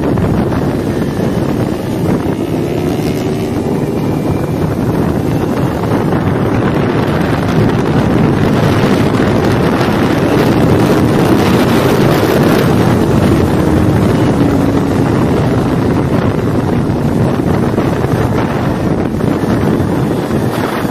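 Kawasaki Ninja 400's parallel-twin engine running hard at track speed, its pitch rising and falling with the throttle, under heavy wind noise on the microphone.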